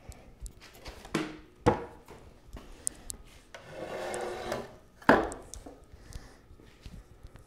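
Knocks of a scrap-wood frame being tipped over and set back down on a concrete floor, with a rough scrape of wood in between; the loudest knock comes about five seconds in.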